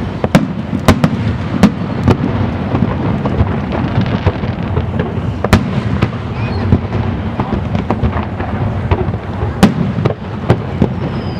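Aerial fireworks display: a continuous low rumble of overlapping shell bursts with sharp cracking reports scattered irregularly throughout, and a falling whistle near the end.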